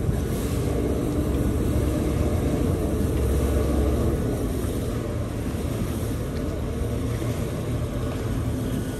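Steady low rumble of a 49.5 m Palmer Johnson superyacht's engines idling as it holds position stern-to against the quay while docking. The rumble swells briefly about three seconds in.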